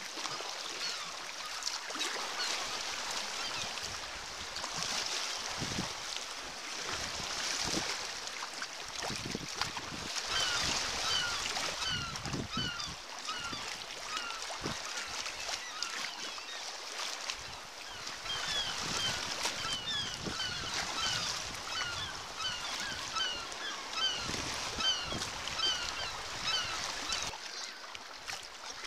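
A cliff seabird colony calling: a dense chatter of many short, repeated cries that grows thicker in the second half. Underneath it, water splashes against the sea kayak and paddle.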